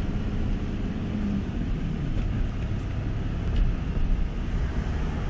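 Steady engine and road rumble heard from inside the cabin of a moving vehicle.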